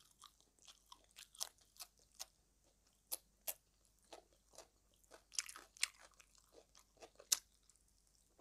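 Close-up chewing and crunching of crisp skin-on frog fried in fish sauce, eaten with raw vegetables: a string of short, irregular crunches.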